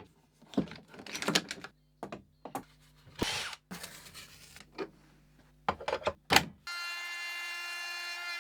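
Workshop work on a wooden bass body or neck: a run of short scrapes, rubs and knocks. About two-thirds of the way in, a power tool starts with a steady whine.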